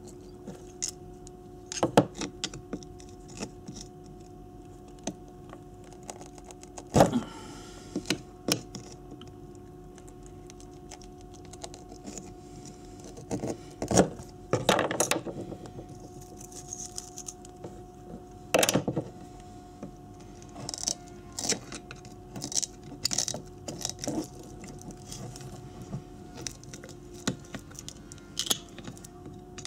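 Screwdriver blade prying and scraping at the copper winding of a Honda CB250N ignition stator coil as the old wire is stripped off. It makes irregular metallic clicks and scrapes, a few sharp ones standing out, with quicker small ticks near the end, over a steady low hum.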